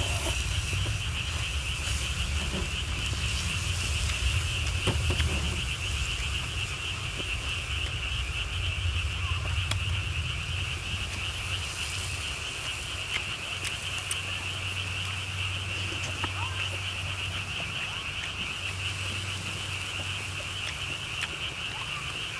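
Close-up chewing and eating sounds with a few light clicks, over a steady high-pitched chorus of calling animals.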